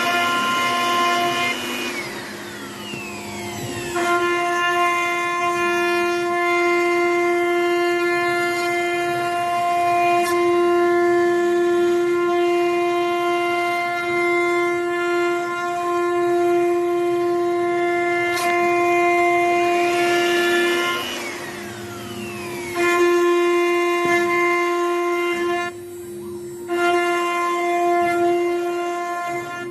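ART 1325T CNC router's spindle whining at a steady high pitch while it cuts wood. Twice, about two seconds in and again about twenty seconds in, the steady tone gives way to sweeping glides in pitch and dips in level before it settles back.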